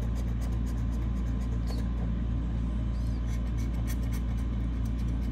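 A scratch-off lottery ticket is being scratched in short strokes, heard as quick rasps over a steady low hum, which is the loudest sound.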